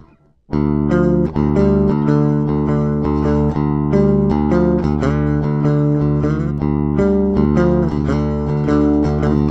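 Electric guitar playing a melodic line of single notes over a steady low bass part. The music starts abruptly about half a second in.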